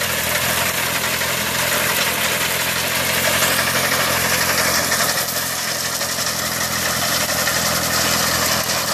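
Water-cooled 30 hp Kubota diesel engine of a reaper-binder harvester running steadily, with a dense high hiss over the engine note.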